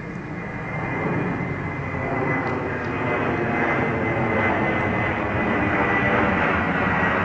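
Jet airliner flying low overhead: its engine noise grows steadily louder, with a high whine that slowly drops in pitch as it passes.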